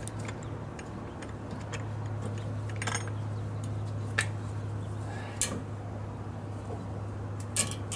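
Scattered light metallic clicks and taps as a brake caliper and pads are worked back onto the front disc brake, over a steady low hum.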